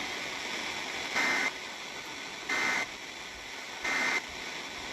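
Three short bursts of Emergency Alert System digital data, the end-of-message code that closes an alert, about a second apart over steady radio static hiss.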